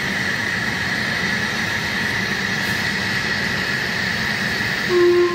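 A steady rushing hiss, and near the end a steam locomotive's whistle gives one loud, clear pitched blast that trails off.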